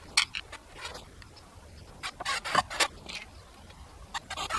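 Scattered sharp knocks and clicks in small clusters, from handling wood and metal angle brackets while fitting them to a wooden pallet bench.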